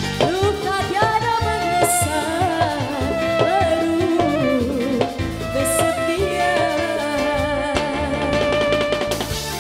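Live dangdut music: a woman singing with a wavering melody over bowed violin and a steady drum beat.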